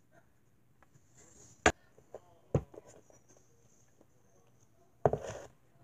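Quiet room tone broken by sharp hard knocks, one loud one about one and a half seconds in and another about a second later, as a plastic Littlest Pet Shop figurine is handled and set down on the table, then a short burst of noise near the end.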